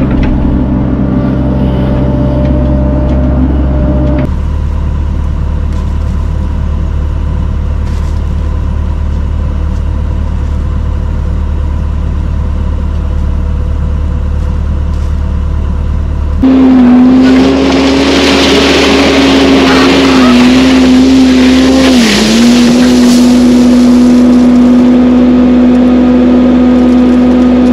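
Diesel engine of a Cat mini excavator running steadily. Then a compact loader's engine runs louder, with a steady whine that dips briefly twice as it takes load.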